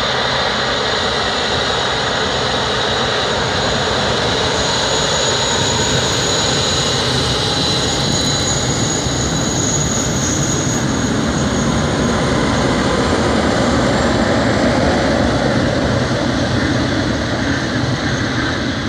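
Jet airliner engines running loud and steady: a wide rushing noise with a high whine over it. It grows a little louder, then eases off slightly near the end.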